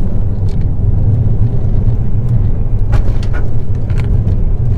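Steady road and engine rumble inside a moving Ford Fiesta ST's cabin, with a few short scraping knocks about three and four seconds in: the wide, square-shouldered semi-slick front tyre catching the top of the inner wheel guard.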